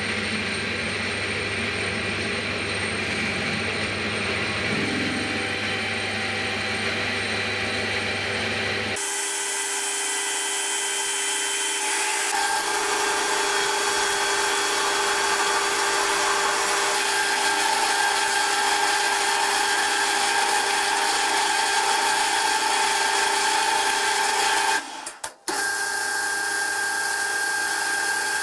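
Metal lathe running, its spindle turning a rusty steel bar with a steady hum. About nine seconds in it changes to the lathe cutting the bar, played back at four times speed, so it becomes a steady higher-pitched machining whine. It drops out briefly near the end.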